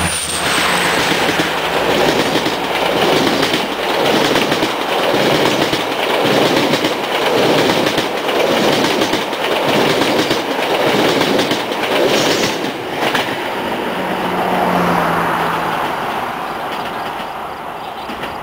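GO Transit bilevel passenger train passing close by, its wheels clattering over the rail joints in a regular swelling rhythm. The clatter fades steadily over the last few seconds as the train moves away.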